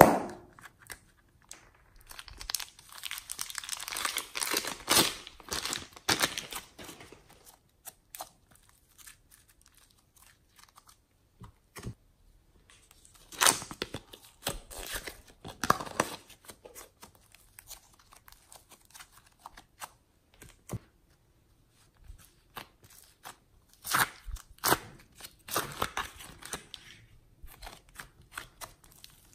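Hands squeezing, poking and pulling apart slime and soft foam clay, making crackling, crinkling and tearing sounds. They come in three stretches of several seconds, with quiet pauses between, after a sharp crinkle of plastic wrap at the very start.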